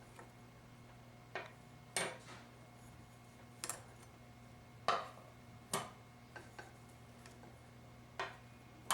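4L60E transmission clutch plates clinking as they are taken out of the input drum and set down one at a time: about a dozen short metallic clicks at irregular intervals.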